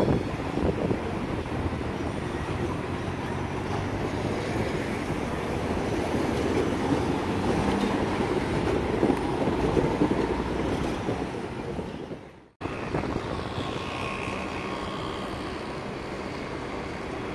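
Vienna Siemens ULF low-floor trams passing on street track. First a steady rolling rumble as one goes close by. After a sudden brief dropout about twelve seconds in, a second tram passes with a faint high whine.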